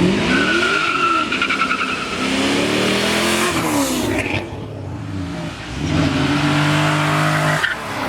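Car exhaust as a car accelerates hard, the engine note rising and falling twice in quick revs, with a thin high whine over the first couple of seconds. The sound dips about halfway, then a steady engine note comes back and cuts off sharply near the end.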